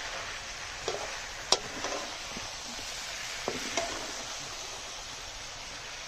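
Chicken pieces sizzling and frying in a large black wok over a wood fire, stirred with a ladle, with a few sharp clicks as the ladle knocks and scrapes against the pan.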